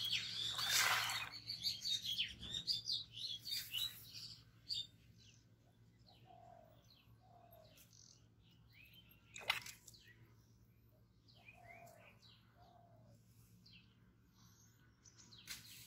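Small birds chirping and twittering, with a lower two-note call heard twice. A loud rush of noise fills the first two seconds, and a single sharp click comes about halfway through.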